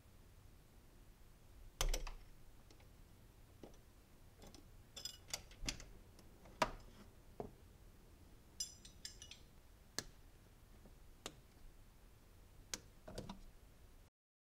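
Sparse metallic clicks and clinks of a wrench on the fuel line fitting at the fuel rail as it is broken loose, with the loudest knocks about two seconds in and again past the middle, and a few quick rattling clinks in between.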